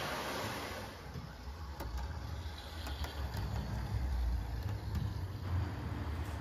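Model Northern class 158 diesel multiple unit running slowly along the layout's track: a steady low rumble with a few faint clicks. A hiss dies away in the first second.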